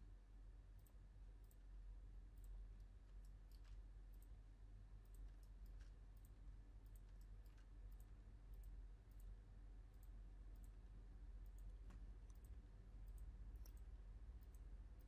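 Near silence with faint, irregularly spaced clicks of a computer mouse, a couple of dozen scattered through, over a low steady hum.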